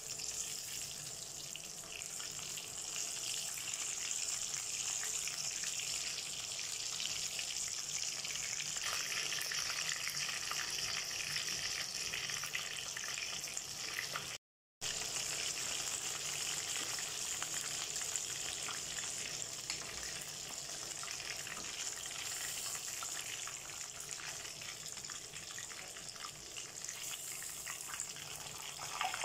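Breadcrumb-coated chicken sticks deep-frying in hot oil in a steel wok: a steady sizzling hiss with fine crackles. It breaks off for a moment about halfway through.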